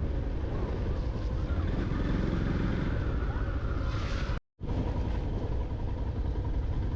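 Riding noise from a Yamaha FZ-X motorcycle under way: a steady low rush of wind on the microphone over the bike's engine. The sound cuts out completely for a split second about halfway through.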